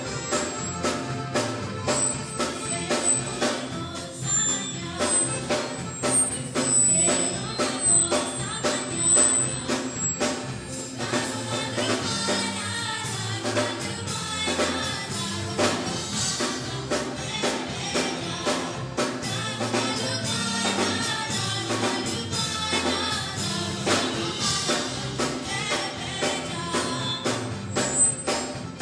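A small live band playing a song with a drum beat and percussion, and a voice singing over it.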